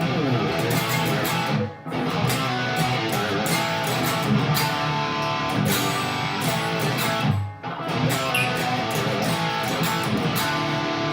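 Masterbuilt Charvel electric guitar played with its original tremolo block and hardware, the 'before' tone ahead of a FU-Tone 37mm brass big-block upgrade. The playing breaks off briefly twice, about 2 seconds in and again near 7.5 seconds.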